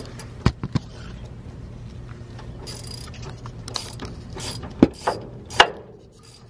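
Hand tools against the underside of a truck: a few sharp metal clicks about half a second in, short rasping bursts in the middle, and three louder knocks near the end.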